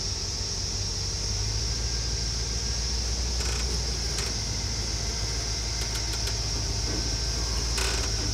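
Hummer H3's engine running at low revs as the 4WD crawls over rocks; the rumble firms up a little about a second in. A steady high-pitched drone sits over it, and a few light clicks come in the second half.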